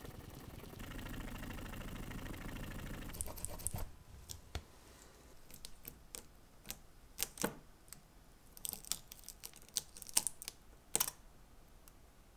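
Steady scrubbing of a brush on a steel watch bracelet link, stopping about four seconds in. Then the steel link bracelet is handled, its links clicking and scraping against each other, with the crackle of tape being handled and peeled, in scattered sharp clicks.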